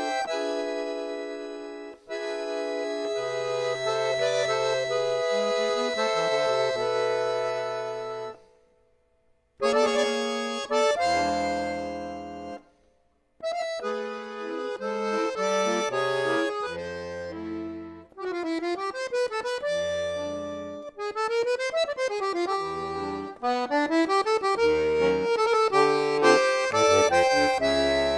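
Piano accordion playing a tango: held chords over separate bass notes, broken by two brief silences about nine and thirteen seconds in, then quick runs of notes up and down.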